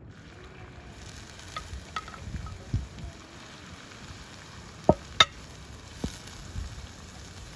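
Chopped onions sizzling in oil in a wide metal pan, stirred with a wooden spatula. The spatula knocks and scrapes against the pan now and then, with two sharp knocks about five seconds in the loudest.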